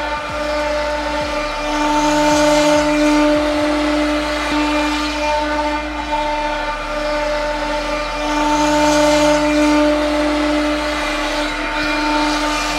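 Spindle of a step Raptor X-SL CNC router running with a steady whine as its end mill cuts plywood. The cutting noise swells twice, about six seconds apart.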